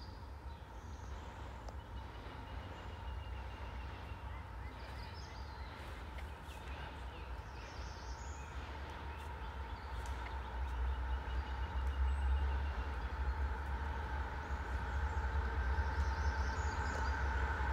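CSX diesel freight locomotive approaching, a low rumble with a steady hum that grows louder over the second half. Faint bird chirps in the background.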